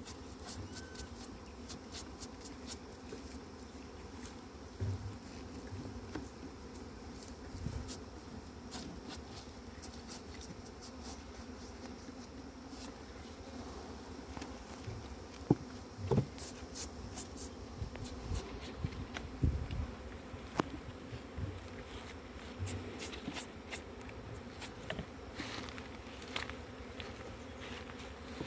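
Honeybees buzzing in a steady hum around opened hives, with scattered light clicks and a few heavier knocks through it.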